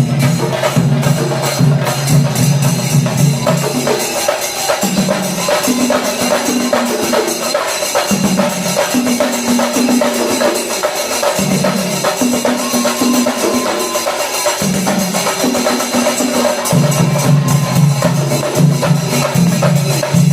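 Singarimelam: Kerala chenda drums beaten in fast, dense strokes with ilathalam hand cymbals clashing along. Under them a low steady tone shifts between pitches every second or two.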